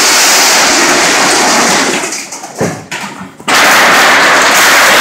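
Excavator demolishing a sheet-metal drive-in canopy: a continuous, very loud noise of metal panels being torn and crumpled. It fades away about two seconds in and comes back abruptly at full level about a second and a half later.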